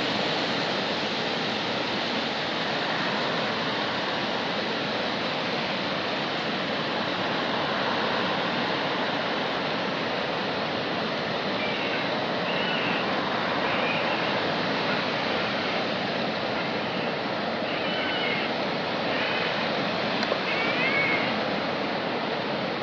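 Steady rush of river water pouring over a dam, an even roar with no break. In the second half a few faint, short, high chirps sound over it.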